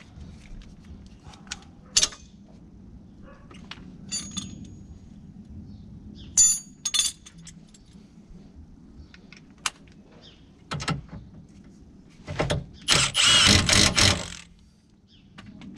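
Metal sockets and tools clinking as they are handled, then a cordless impact wrench run in a short burst and then for about two seconds near the end.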